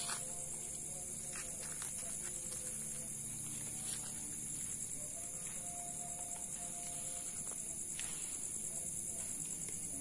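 Night chorus of crickets: a steady, high-pitched trilling, with a few faint clicks.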